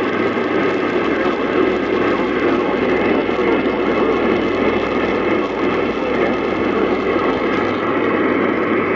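Steady, loud hiss of radio static from a receiver.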